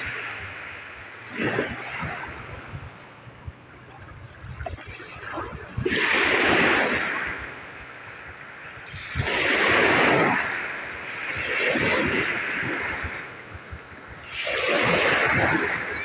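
Sea waves washing in over rocks and pebbles at the water's edge: splashing, foaming surges that swell and fall away every few seconds, five in all.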